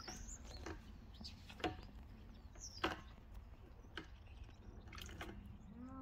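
Small, scattered splashes and drips of water, a second or so apart, from a monk parakeet bathing in a shallow tub. A short, high bird chirp sounds about halfway through.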